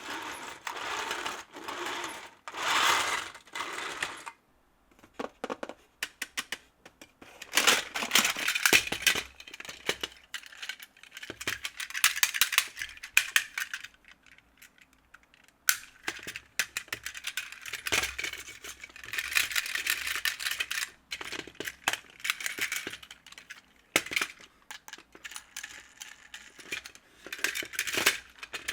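Hard plastic Plarail toy pieces clattering and rattling in irregular bursts of a few seconds, with short quiet gaps between them.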